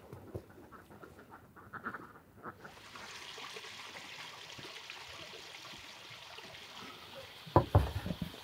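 A few short duck calls, then a steady hiss, and near the end two loud knocks as a metal tray is set down on a wooden table.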